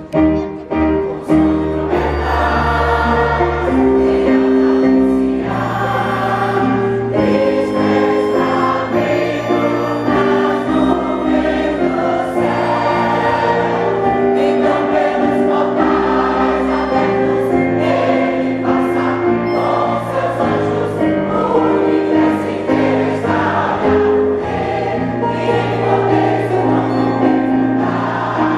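Choir singing a praise song in harmony over instrumental accompaniment: held chords that change every second or two above a steady bass line.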